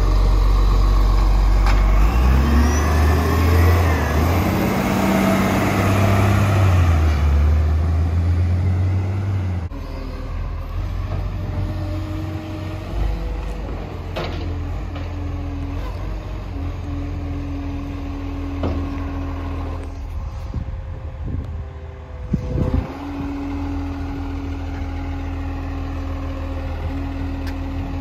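Garbage truck's diesel engine running loud and revving up, rising in pitch, for about the first ten seconds, then dropping suddenly to a steadier, quieter run near idle. A short sharp noise sounds about three-quarters of the way in.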